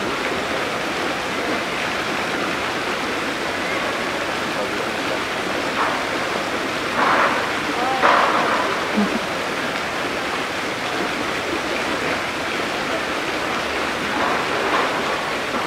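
Steady rush of running water, with a few short snatches of distant voices over it about six to eight seconds in and again near the end.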